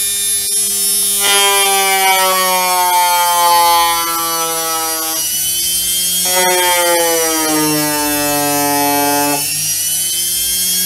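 Washing machine universal motor running on a tacho-feedback speed controller, with a wooden stick pressed twice against its spinning shaft. Each time a whine comes in and sinks steadily in pitch as the load drags the speed down, then cuts off, and the motor runs on without stalling.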